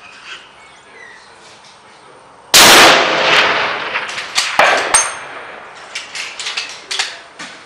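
A single shot from a .300 Remington Ultra Magnum rifle, very loud and echoing for about a second. About two seconds later comes a sharp metallic clang with a high ring, then a quick run of smaller metallic clicks.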